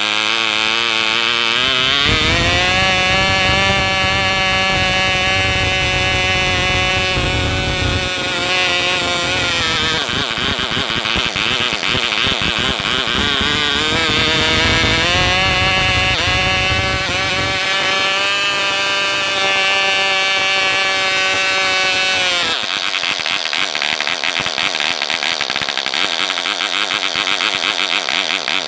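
ETA 1.5 cc model diesel engine running with a propeller on a test stand, a high, buzzy note. Its pitch climbs in the first couple of seconds, sags about ten seconds in, climbs back a few seconds later, then breaks into rougher, uneven running over the last several seconds.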